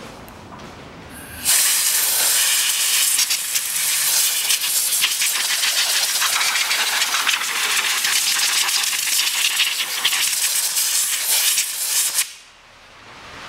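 A pressurised jet hisses steadily and loudly over the engine, starting abruptly about a second and a half in and cutting off sharply near the end after about ten seconds.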